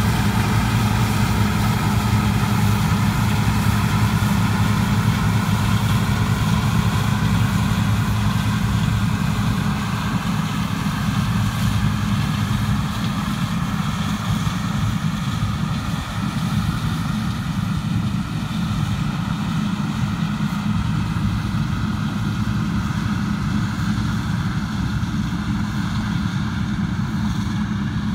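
Large diesel farm machinery engine running steadily with a low hum, easing slightly in level about a third of the way through.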